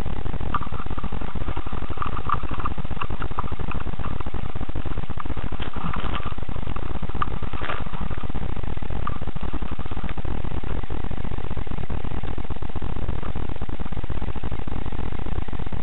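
Steady low rumbling noise from a cheap action camera's microphone, with faint scattered clicks and taps in two clusters, about half a second to three seconds in and again around six to eight seconds.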